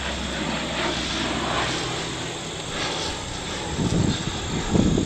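C-130 Hercules turboprop aircraft passing overhead, its steady low engine drone fading out about two seconds in. A few low thumps follow near the end.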